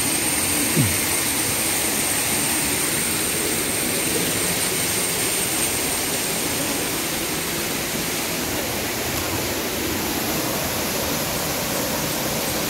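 Waterfall in full monsoon flow: a steady, dense rush of falling water.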